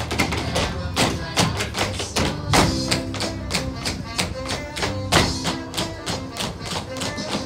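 Tap shoes striking a stage floor in a rapid choreographed tap routine, danced over loud recorded dance music.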